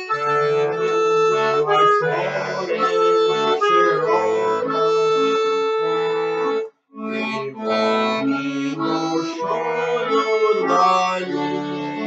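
Tula bayan (chromatic button accordion) playing an instrumental passage, a melody over sustained bass notes, with a brief break just under seven seconds in before it picks up again.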